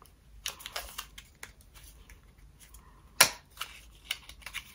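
Small handling sounds of a lip product tube being opened and used: faint rustles and light clicks, with one sharp click a little past three seconds in.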